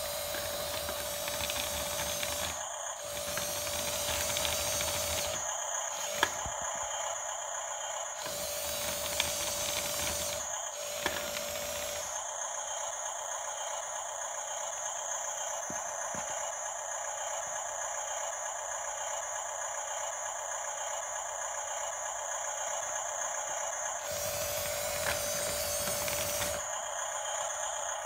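Toy RC bulldozer's small electric motors and plastic gears whirring as it drives on its tracks, the sound changing every few seconds as it starts, stops and switches functions, with a steady high whine and a few sharp clicks.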